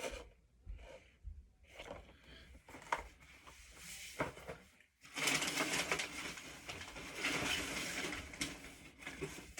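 Packaging being handled: scattered light taps and rustles, then from about five seconds in a dense, steady crinkling rustle of wrapping or box material that stops just before the end.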